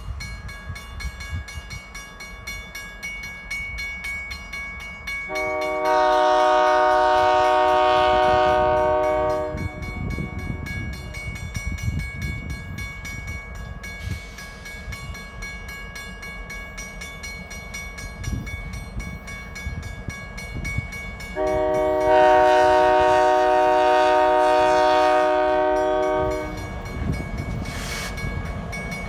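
CN diesel freight locomotives (a GP9RM and two GP38-2s) running as the train departs, with two long blasts of a multi-note locomotive air horn of about four and five seconds, about twelve seconds apart, and a third blast starting at the very end.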